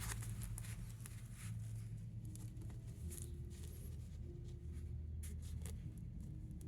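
Zipper slider and fabric being handled, giving scattered small clicks and scrapes over a steady low hum.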